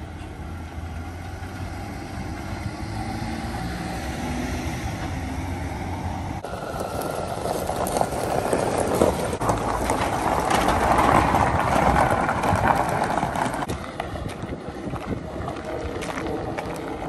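A Jeep Gladiator pickup towing a loaded car trailer: a steady engine and road hum at first, then, from about six seconds in, its tyres crunching over a gravel driveway as it pulls in, loudest around ten to thirteen seconds, before the noise drops back to a quieter hum.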